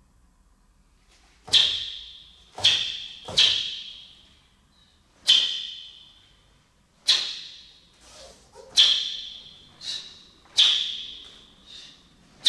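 Sharp snaps of a taekwon-do uniform (dobok) cracking with each fast technique of a pattern: about eight loud cracks and a few softer ones, irregularly spaced a second or so apart, each trailing off in a short echo.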